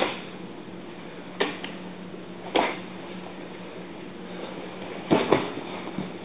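Two sharp slaps in the first three seconds, then a louder double thud a little after five seconds as a karate partner is thrown down onto the mat, over a faint steady hum.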